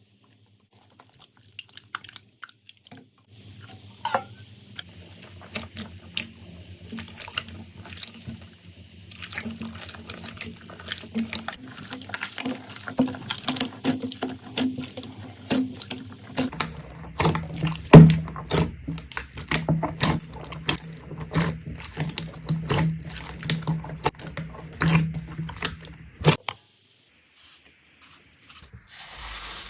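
Slime being squished and stretched: many wet clicks and squelches, over a steady low hum that drops in pitch about halfway through and cuts off suddenly near the end.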